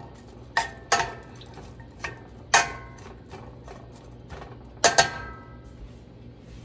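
Metal tongs clinking against a stainless steel pot as sliced onions are spread in it: about six sharp, ringing metallic clinks at uneven intervals, the loudest about two and a half seconds in and a close pair about five seconds in.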